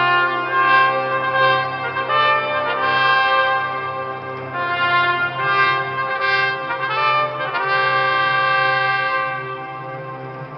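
Herald trumpet playing a fanfare of held, stepping notes that ends about nine seconds in, over a steady low sustained tone.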